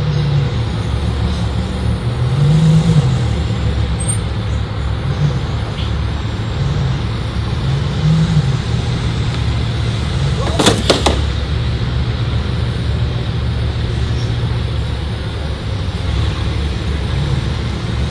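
Low, steady rumble of idling supercar engines, the note swelling up and back down briefly a few times. A short cluster of sharp clicks comes about ten and a half seconds in.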